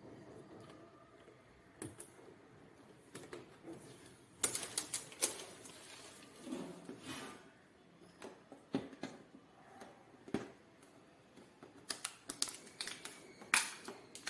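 Irregular clicks, taps and knocks of cardboard and plastic packaging being handled as a new air conditioner's packing box is opened, with a short scrape about halfway through.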